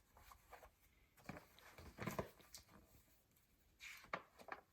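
Faint, brief rustles and scuffs of a picture book being handled, a few of them spaced out over a few seconds.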